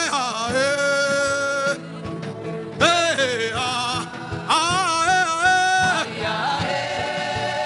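Wordless sung vocal over sustained backing music: three or four long held notes that slide into pitch and waver, each lasting one to two seconds with short gaps between.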